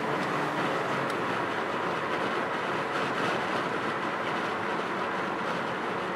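Lamborghini Aventador Roadster's V12 cruising at low revs, heard from a car following close behind, under a steady rush of tyre and wind noise. The engine's note fades into the noise about a second in.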